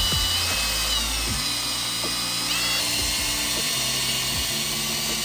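Power drill running steadily with a larger bit, drilling the mounting holes for a snowmobile ice scratcher kit; its whine shifts in pitch a couple of times as the load changes. Background music plays underneath.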